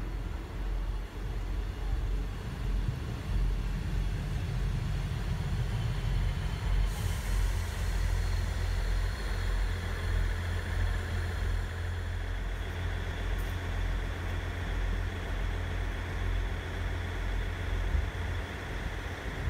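Class 159 diesel multiple unit pulling into the platform and coming to a stand, its underfloor diesel engines rumbling low. About seven seconds in a hiss of brake air starts and fades after a few seconds, with a short second hiss a little later.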